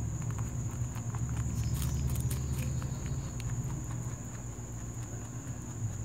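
A rabbit chewing pieces of peach taken from a hand, with scattered soft clicks, over a steady low rumble and a continuous high-pitched whine.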